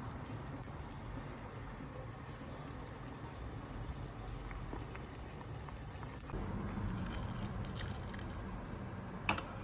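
Pot of vegetable soup bubbling on the stove, a soft steady bubbling and pattering. A little after six seconds a low steady hum joins in, and there is one sharp click near the end.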